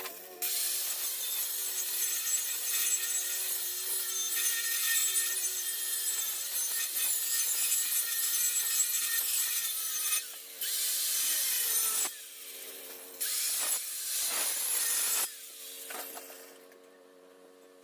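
Power tool cutting through 3/4-inch steel plate: a harsh hissing grind over a steady motor whine. The cutting noise breaks off briefly three times while the motor keeps running, then dies away to a faint hum near the end.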